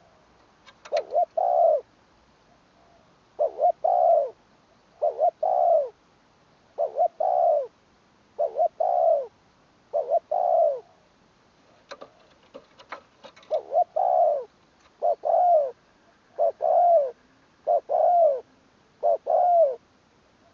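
Spotted dove cooing over and over: each phrase is one or two short notes and then a longer, arched coo, repeated about every one and a half seconds, with a short pause about halfway through.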